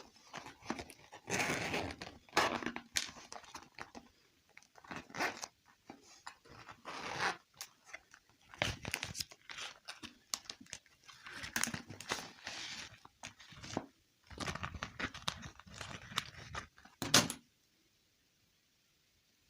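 Packaging crinkling and tearing in irregular bursts, with sharp little clicks as toys are handled. The rustling stops a couple of seconds before the end.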